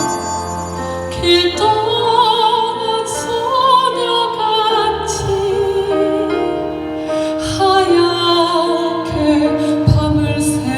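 Soprano singing a slow Korean song with vibrato over instrumental accompaniment.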